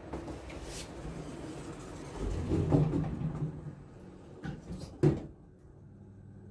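Elevator doors sliding shut: a rumble, then a sharp clunk about five seconds in. After the clunk the surrounding noise drops away, leaving a steady hum inside the closed car.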